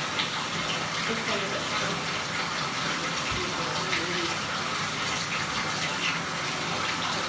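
Tap water running steadily into a bathtub.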